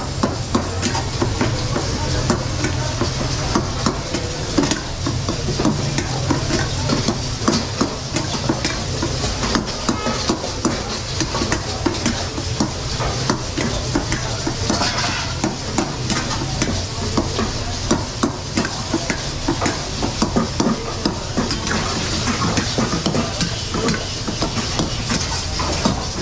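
Metal ladle stirring and scraping mutton karahi around a black iron wok, with many quick clinks against the pan, over the steady sizzle of the meat and tomatoes frying. A low steady hum runs underneath.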